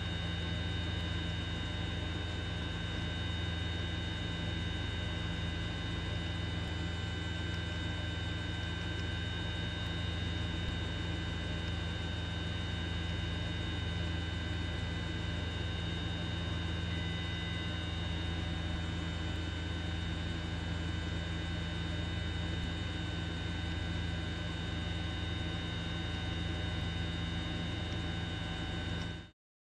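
Steady drone of a helicopter's turbine engine and rotors: a low hum with a few steady high whining tones. It cuts off suddenly near the end.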